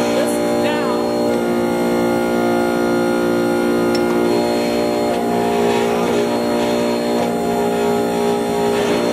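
Hydraulic forging press's 5-hp electric motor and hydraulic pump running with a loud, steady hum of several held tones; it is loud because the machine's vibration is not yet isolated.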